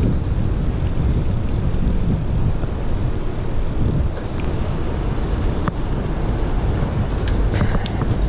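Steady low rumble of wind on the action camera's microphone and road noise while riding a bicycle, with a few short high squeaks and clicks near the end.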